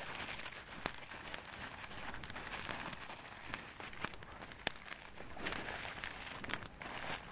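Aluminium foil crinkling as hands fold and crimp a foil packet shut, with irregular small crackles and clicks throughout.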